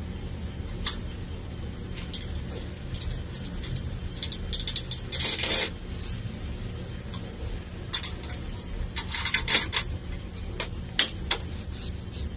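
Metal clicks and short rattles as the hold-down clamps on an aluminium-extrusion router table are loosened and the cut board is lifted off, with the loudest bursts about 5 and 9.5 seconds in and a sharp click about 11 seconds in. A steady low hum runs underneath.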